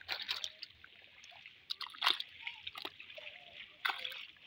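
Shallow muddy pond water sloshing and splashing as someone wades and handles a floating plastic crate, in short irregular splashes; the sharpest come about two seconds in and again near four seconds.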